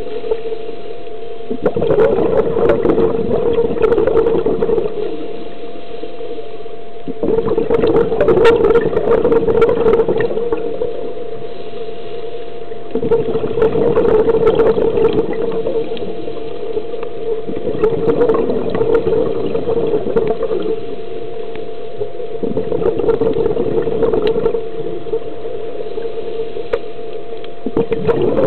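Scuba diver breathing through a regulator underwater: five bubbly, rumbling exhalations come about every five to six seconds, with quieter inhalations between. A steady hum with a fixed tone runs underneath.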